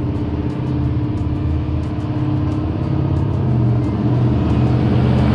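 A 1968 Chevrolet K10 pickup drives toward the listener, its fuel-injected 383 cubic inch V8 crate engine running steadily and growing slightly louder as it approaches.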